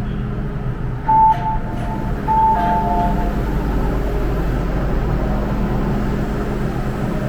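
MTR M-Train at a platform with a steady low hum from its machinery. About a second in, a two-note electronic chime sounds twice, a higher note then a lower one, typical of a door-closing warning.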